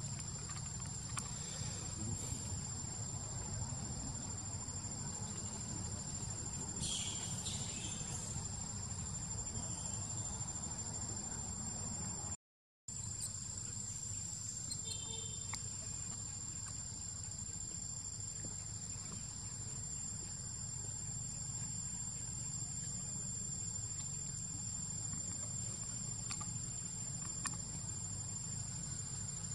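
Steady chorus of insects droning on several high, even tones, over a low steady rumble. A brief high sound comes about seven seconds in and a faint short call around fifteen seconds in, and the sound drops out for a moment about twelve seconds in.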